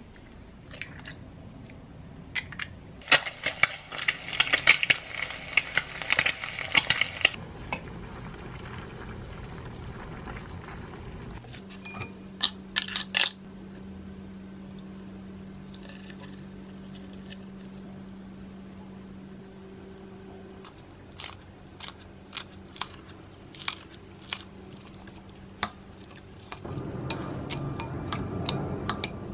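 Kitchen food-prep sounds: a few seconds of dense clicking and rustling about three seconds in, then scattered clinks of utensils against a glass mixing bowl. Near the end comes a louder stretch of seasoned bean sprouts being mixed in the glass bowl.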